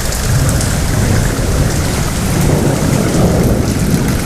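Rain falling over a low, continuous rumble of thunder.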